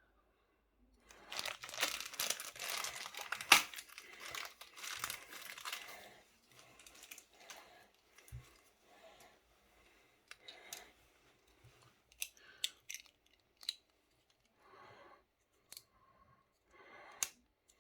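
Beyblade packaging being crinkled and torn open by hand, heaviest in the first few seconds, then lighter intermittent rustling with a few sharp clicks.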